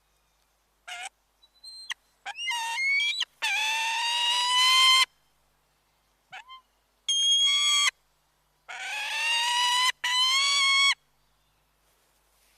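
Bird calls: a few short call notes, then four long, loud calls, each about a second to a second and a half, with a slow rise in pitch, separated by pauses.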